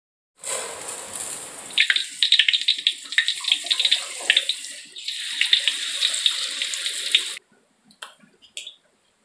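Spray-head kitchen faucet running into a rice-cooker pot as rice is rinsed, with a spattering hiss of water on water and many sharp splashes. It stops abruptly about seven seconds in, and a few faint ticks follow.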